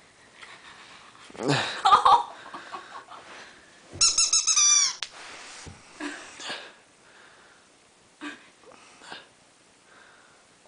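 Corgi puppy at play with a rope toy: a loud run of high-pitched squeaks about four seconds in, after a shorter burst near two seconds, with small snuffling and scuffling sounds in between.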